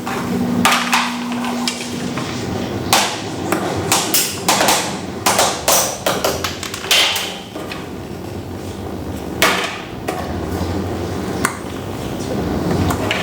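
Irregular series of sharp knocks and clattering strikes on hard objects, some ringing briefly, over a steady low hum for the first two seconds.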